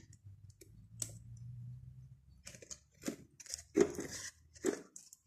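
Light metallic clicks and scrapes as a piston ring is worked into its groove on a VW Golf Mk1 1.8 piston by hand and with a knife blade, seating a ring that was not properly seated. One click comes about a second in, and a few sharper ones follow in the second half.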